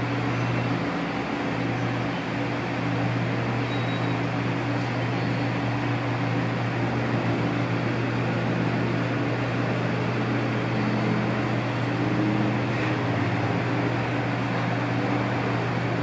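Steady machinery hum: a low drone under an even rushing hiss, unchanging throughout.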